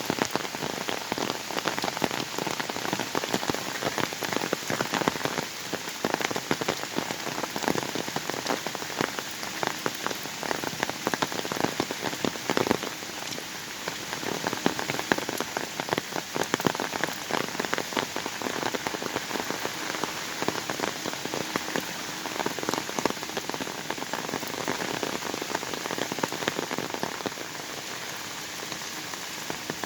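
Autumn rain falling steadily in a forest: a continuous hiss of rainfall with a dense patter of individual drops striking close by.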